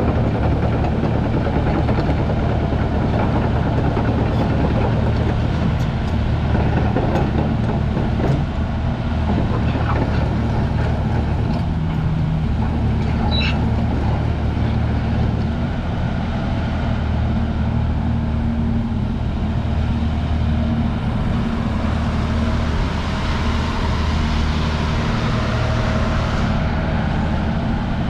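Diesel engine of a Hyundai R340L hydraulic excavator running steadily, a constant low drone.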